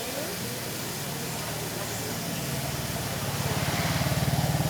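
A vehicle's engine running with a low, fast pulse, growing louder about three and a half seconds in as it comes close, over steady market background hiss.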